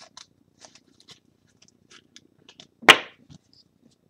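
Trading cards handled by hand: light ticks and rustles of card stock, and one loud sharp knock about three seconds in, likely the rigid plastic card holder being handled.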